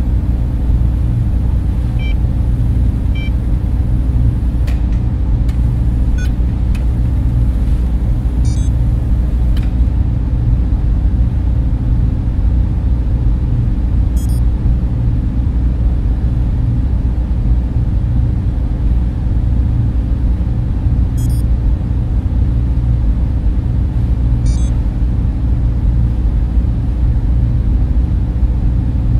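Sci-fi spaceship interior ambience: a steady, low machine hum and rumble, like fans and motors running. A few faint, short, high electronic chirps are scattered through it.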